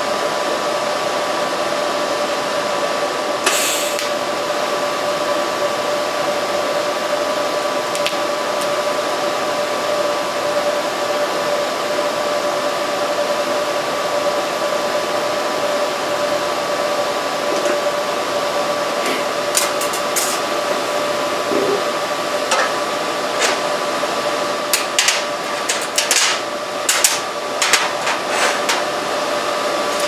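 Tack welding stainless steel spoons with an electric arc welding torch: a steady hum with a high whine runs throughout. There is a sharp click about three and a half seconds in, and a cluster of short metallic clinks and taps in the last third.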